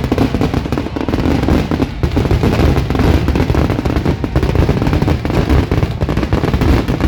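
Fireworks display: a dense, continuous barrage of bangs and crackles from many shells going off in quick succession.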